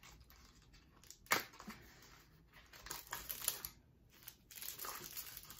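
Packaging being handled and opened: faint rustling and scattered clicks, with one sharper click about a second in.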